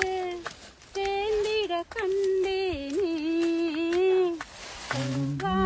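A woman singing a melody without accompaniment, holding long notes with wavering, ornamented turns and breaking between short phrases. Near the end a second, lower voice joins in.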